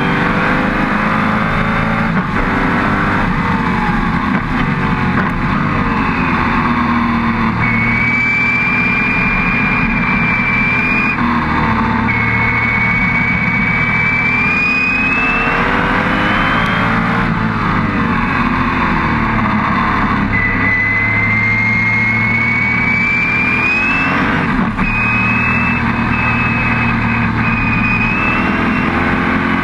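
Onboard sound of a Lola T70 Spyder's V8 at racing speed. The revs climb and drop repeatedly through gear changes and braking, with a high whine rising in pitch alongside the engine several times over.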